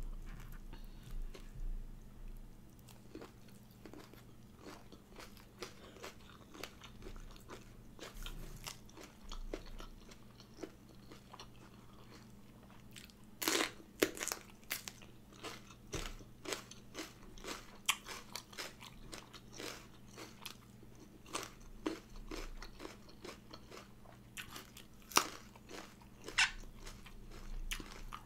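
Close eating sounds: crisp crunching and wet chewing clicks as spicy raw shrimp salad is eaten with sticky rice and raw vegetables. The loudest crunches come about 13 seconds in and again near the end.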